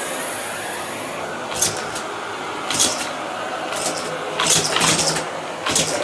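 Miele canister vacuum cleaner running steadily on carpet. Several short bursts of rattling cut through, as small pieces are sucked up the wand and hose.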